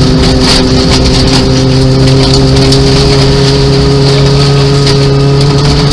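Nissan Micra 1.0-litre rally car's engine heard from inside the cabin, running hard at a steady pitch along a gravel stage, over a constant rush of tyre and gravel noise with scattered stone clicks.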